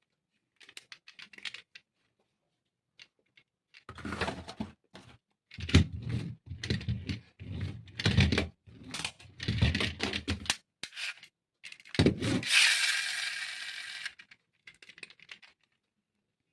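A box being unpacked by hand: irregular clicks, scrapes and rustling of packaging, with a longer tearing sound about two-thirds of the way in.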